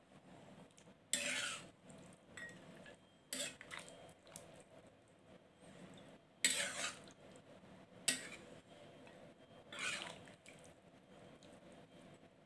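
Metal ladle scraping against a metal cooking pan while stirring a soupy curry, in about five separate strokes with a sharp clink about eight seconds in.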